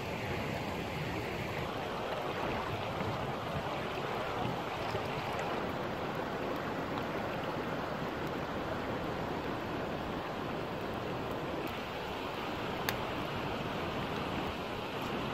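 Steady rush of a river flowing past over stones, with a wood campfire burning close by and one sharp crackle from the fire near the end.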